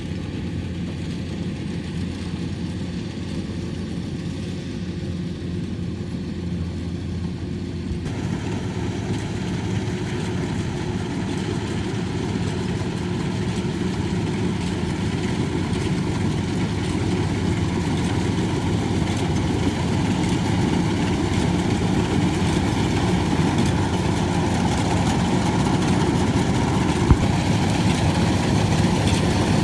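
Rice combine harvester running: a steady engine drone with machinery noise, growing gradually louder and brighter from about eight seconds in, with a single sharp knock near the end.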